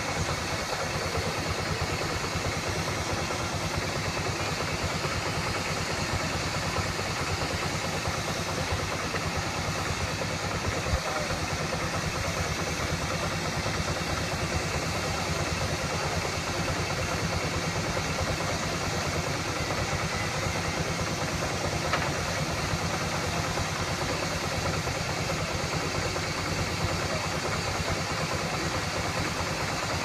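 A.B. Farquhar steam traction engine running steadily.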